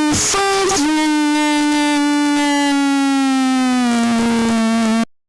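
A long held, buzzy pitched tone with many overtones, sliding slowly down in pitch over about four seconds and then cutting off suddenly; a few short pitched blips come before it.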